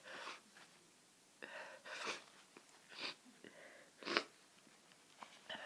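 A person sneezing in a quick run of about three sneezes roughly a second apart, with a drawn-in breath before the first. The sneeze about four seconds in is the loudest. The sneezes come with hay fever and a cold.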